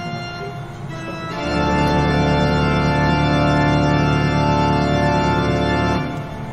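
Organ music: a quieter held chord, then a louder sustained chord comes in about a second and a half in, held steady, and drops away near the end.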